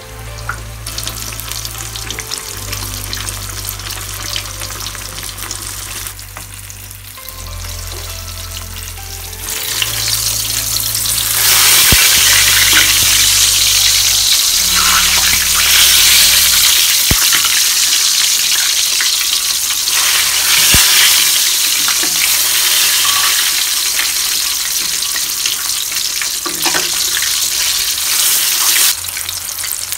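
Breaded jack fish frying in hot oil in a wok: a steady sizzle that grows much louder about ten seconds in. Background music's low bass notes run under it for the first half.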